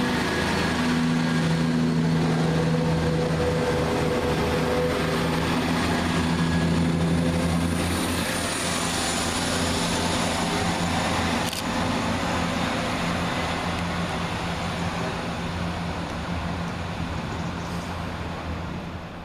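Cross Country Class 170 Turbostar diesel multiple unit's underfloor diesel engines running with a steady low drone, easing off slowly near the end.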